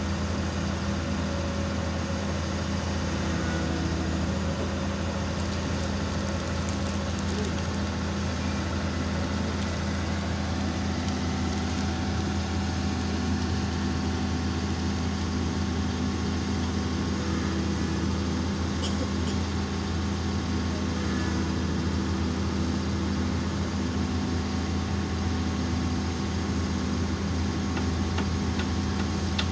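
Heavy machine's engine idling steadily with a low, even hum while a slung precast concrete ditch segment is held in place.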